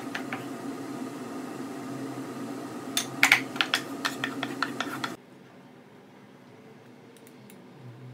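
Wooden spatula scraping and knocking against a frying pan as leftover fried rice is pushed into a bowl, a quick run of sharp knocks about three to five seconds in, over a steady hum that cuts off abruptly a little after five seconds.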